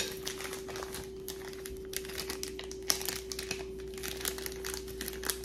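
Packaging crinkling and rustling as jewelry is handled and unwrapped: a dense run of small irregular crackles with a sharper click about three seconds in, over a steady faint hum.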